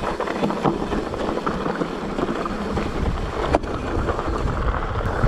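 Mountain bike rolling fast down a loose, rocky dirt trail: wind rushing over the microphone and tyres crunching on gravel, with sharp clicks and rattles from the bike, the strongest about three and a half seconds in. The low rumble grows louder from about three seconds in.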